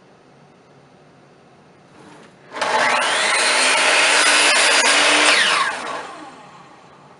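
Miter saw started about two and a half seconds in, its whine rising as the blade spins up and cuts through a wooden board. The motor is released about three seconds later and spins down with a falling whine.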